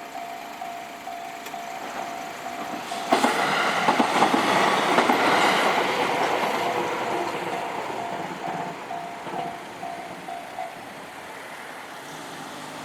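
Japanese level-crossing warning bell ringing about twice a second while a train passes. The train starts suddenly about three seconds in, is loudest a couple of seconds later, then fades away. The bell stops shortly before the end as the crossing clears.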